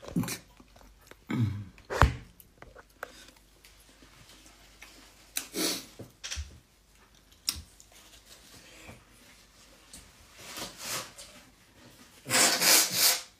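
Handling and rustling noises from a person moving near a phone microphone, with scattered light knocks and a few breathy puffs of noise. The loudest puff, about a second long, comes near the end.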